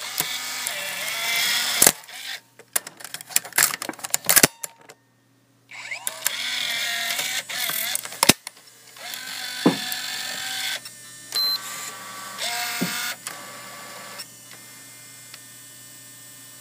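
Irregular sharp clacks and knocks over a noisy background, cutting out to near silence briefly a few seconds in.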